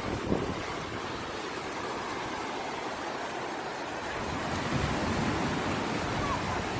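Ocean surf washing in: a steady rush of breaking waves that grows louder about two-thirds of the way through, with a low rumble of wind on the microphone.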